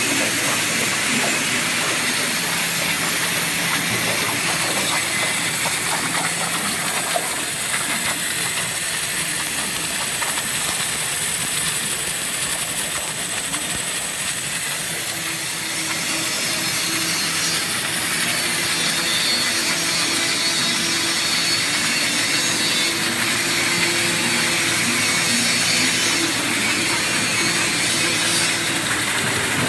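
CNC waterjet cutter's high-pressure jet cutting through a metal sheet: a loud, steady hiss, with a faint low hum joining about halfway through.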